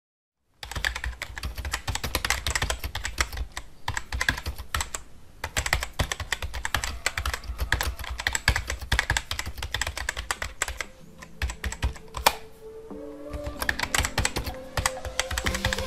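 Rapid, uneven key clicks of a typing sound effect, starting about half a second in. Music with held notes comes in under it about eleven seconds in and grows louder near the end.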